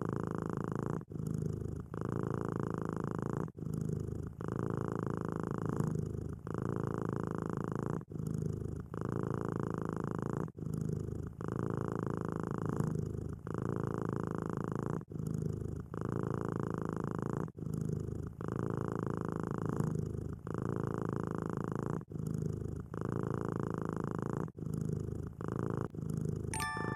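Domestic cat purring steadily, the purr breaking briefly about every second or so with each breath in and out. Chiming music comes in at the very end.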